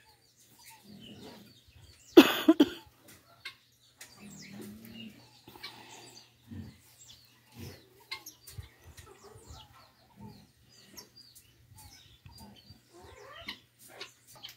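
Chickens clucking and calling now and then, with one louder, harsher cry about two seconds in.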